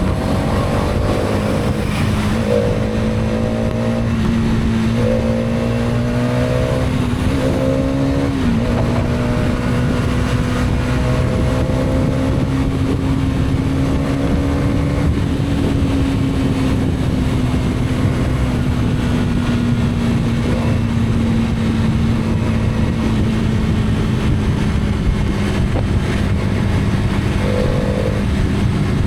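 Hero Karizma XMR's single-cylinder engine running under way, its hum climbing slightly in the first several seconds and then slowly easing off, with short stepped rising tones above it early on and again near the end, over a steady hiss.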